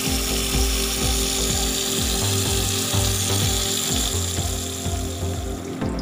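Tap water running onto lettuce leaves in a plastic basin, a steady splashing hiss that stops abruptly near the end. Under it, background music with a repeating beat.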